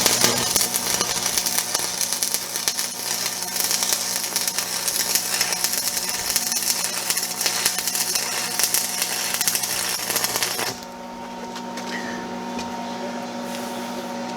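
Stick-welding arc from a 1/8 inch 6013 rod at 105 amps on 1/4 inch steel, a steady crackling sizzle that runs smoothly and cuts off sharply about eleven seconds in as the arc is broken. A steady electrical hum continues underneath and after.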